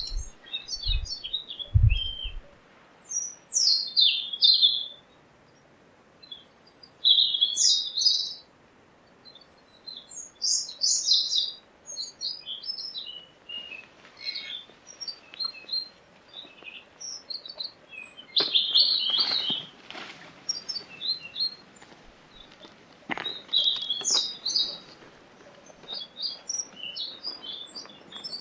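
Animal calls: many short, high-pitched chirps coming in bursts of a second or two, with quiet gaps between them.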